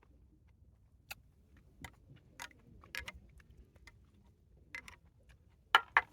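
Scattered light clicks and knocks of objects being handled, about seven in all, with the two loudest close together near the end.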